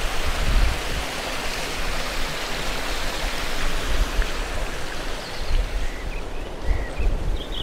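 Water rushing down the stepped outflow weir of a lake's dam, a steady hiss that fades after about five seconds.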